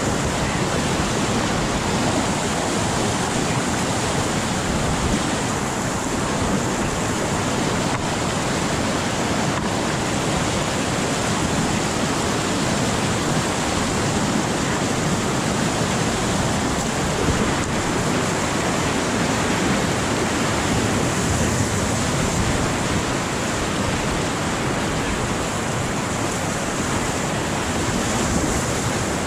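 Whitewater rapids rushing steadily, heard close up from a kayak running through the churning water.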